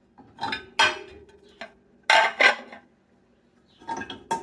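Dishes and cutlery clinking: three pairs of sharp clinks, each with a short ring, spread a second or two apart.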